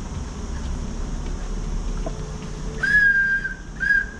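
Low rumbling noise, then about three seconds in a series of short, steady, high whistled notes on one pitch.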